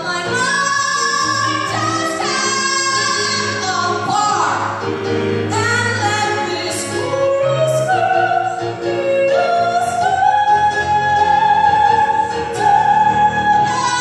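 A woman singing a musical-theatre song solo into a microphone over a low accompaniment. She holds long notes in the second half.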